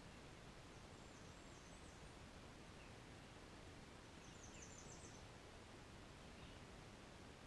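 Near silence: faint outdoor background hiss with distant small-bird calls, including a quick run of about five high chirps about halfway through.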